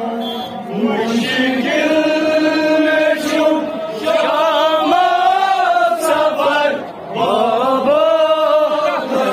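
Male nohakhans reciting a Kashmiri nauha, a Shia lament, into microphones: long, wavering chanted lines, with short breaks about four and seven seconds in.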